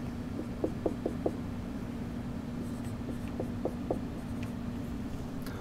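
Dry-erase marker being drawn across a whiteboard in short, quick strokes, a run of about five around the first second and another of about four around three and a half seconds in.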